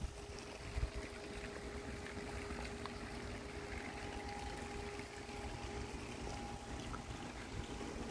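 Quiet outdoor ambience: a steady rushing noise, with wind buffeting the microphone as a fluctuating low rumble and a faint steady hum underneath.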